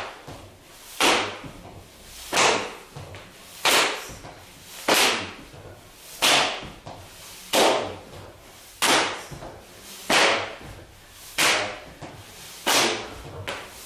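A sharp swishing strike repeated evenly about every 1.3 seconds, each one starting suddenly and fading away quickly: a person's arms being flung out in a rhythmic swinging qigong exercise.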